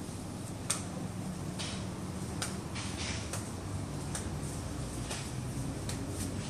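Steady low background hum with a few scattered faint clicks and ticks, the sharpest a little under a second in.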